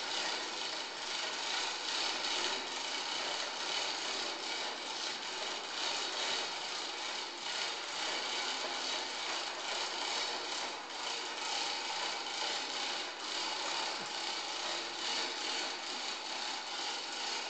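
Continuous rasping noise of a tool working on wood, steady, with slight rises and falls in level.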